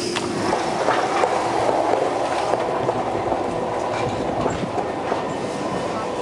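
Stadler KISS double-decker electric train running, heard from inside the carriage: a steady rumble of wheels on the track with a few light clicks.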